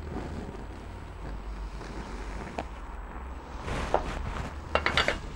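Wind buffeting the microphone with a steady low rumble, over the hiss of a cast-iron gas ring burner that has just been lit. A few sharp clicks and knocks come near the end.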